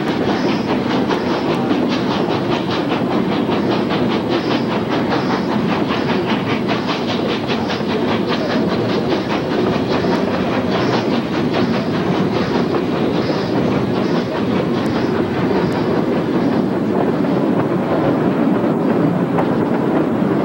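Narrow-gauge steam locomotive and its train running, heard from a car close behind the engine: a steady rolling noise of wheels on rail with a quick, regular beat running through it.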